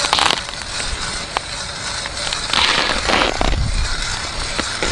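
Crunching of snow and ice underfoot or under the ice skimmer at an ice-fishing hole, three times: briefly near the start, longer in the middle, and again at the very end, over a steady hiss.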